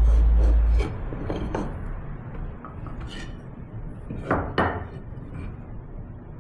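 Music's held bass note dies away in the first second. Then come light clicks and knocks of wood and hand tools being handled, with two pairs of sharper knocks, one pair after the music ends and one later on.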